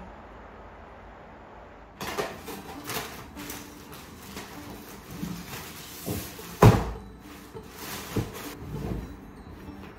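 About two seconds of quiet room tone, then plastic wrapping crinkling and rustling as it is pulled off a rolled rug, with one loud thump past the middle.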